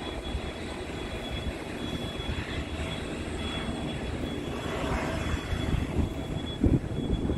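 Aircraft engine noise: a steady rumble and hiss with a faint high whine, growing slightly louder toward the end.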